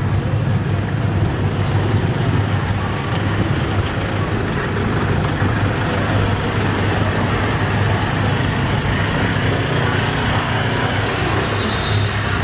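Steady road traffic noise with a strong low engine hum.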